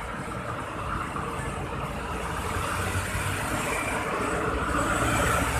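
Road traffic passing close (a bus, a jeepney and a motorcycle) mixed with a CKD Tatra light-rail train running along the adjacent elevated-side track. The noise grows steadily louder as a bus draws near.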